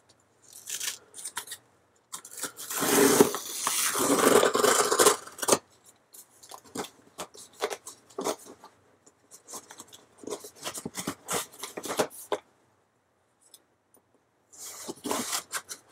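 A knife blade slitting packing tape along a cardboard shipping box: a few short scrapes, then one long, loud cutting stroke from about two to five seconds in, followed by many shorter scratchy strokes.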